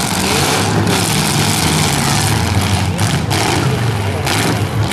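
Demolition derby car engines running and revving hard, with a loud rasping exhaust that eases off briefly about three times.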